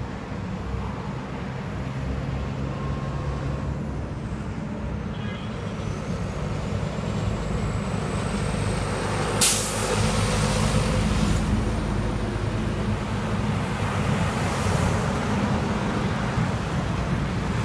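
Highway traffic passing close by: heavy trucks and cars giving a continuous low engine and tyre rumble. About halfway through, a short, sharp hiss cuts through as a dump truck goes by, the loudest moment.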